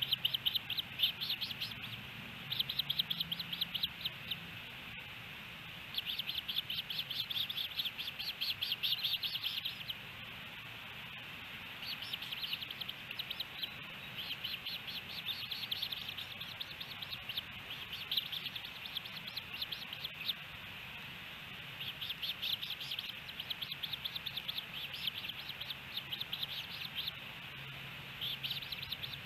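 Ospreys calling: bouts of rapid, high whistled chirps lasting a few seconds each, broken by short pauses and repeated about half a dozen times.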